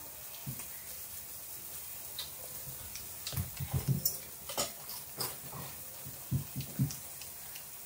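Close-up eating sounds: chewing and mouth smacking in short low bursts, in two clusters, with a few light clicks.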